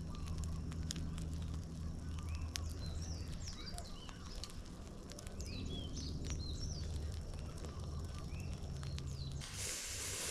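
Outdoor ambience of many short, high chirping calls from small animals over a low steady hum, with scattered faint clicks. About nine seconds in, the sound cuts abruptly to a steady rushing hiss.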